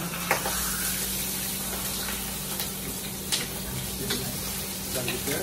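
Tiger prawns frying in hot olive oil in a pan: a steady sizzle with scattered pops.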